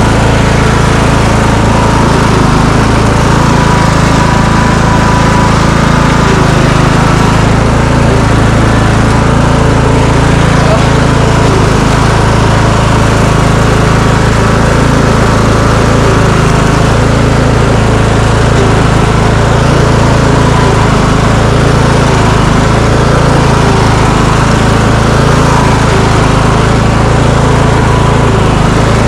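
Riding lawn mower's small engine running steadily and loudly at a constant speed, with the machine stuck on ice.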